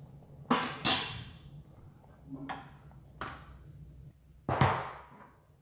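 Cookware and utensils clattering: about five separate knocks and clanks, the loudest near the end.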